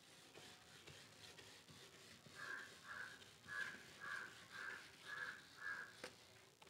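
Faint crow cawing, a run of seven short caws at about two a second, followed by a single sharp knock near the end.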